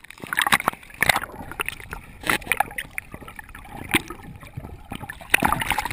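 A dog splashing into lake water, then irregular splashing, sloshing and gurgling as the camera dips in and out of the water at the surface.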